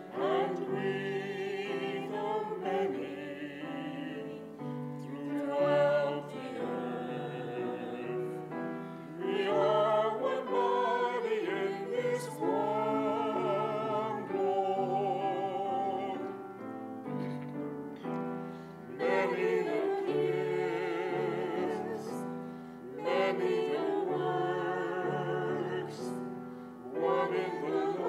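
Small mixed vocal ensemble singing a hymn in parts with piano accompaniment, the voices sung with vibrato in phrases separated by short breaths.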